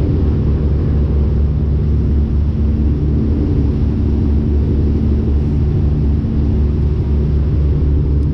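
A riverboat's engine running steadily while the boat is under way: a loud, low, even drone with a faint held hum above it.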